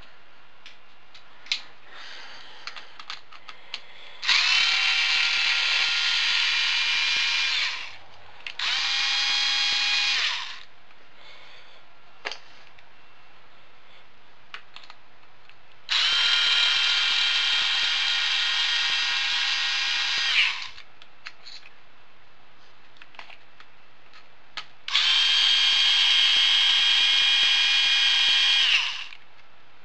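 Cordless electric screwdriver running in four bursts with a steady whine, each starting and stopping sharply, as it backs screws out of an RC truck's radio-box lid. Small handling clicks fall between the bursts.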